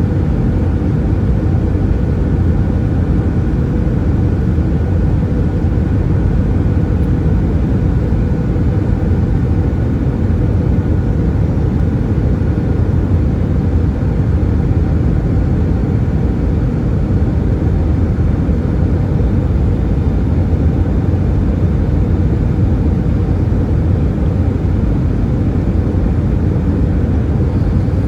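Steady jet-engine and cabin rumble inside an Airbus A320-214 with CFM56-5B engines, heard from a window seat. A deep, even rumble carries a few faint steady hum tones above it, with no change in level throughout.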